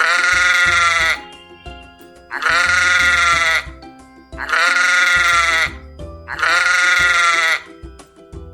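A sheep bleating four times, each call about a second long and a couple of seconds apart, over light background music.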